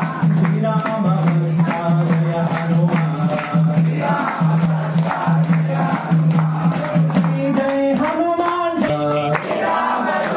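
Group of devotees chanting a devotional hymn together in short repeated phrases on one steady low note, with jingling percussion keeping time. Near the end a single voice slides up and down in pitch.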